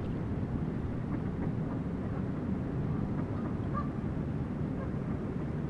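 A flock of mallards on the water, with only a few faint quacks, over a steady low rumble.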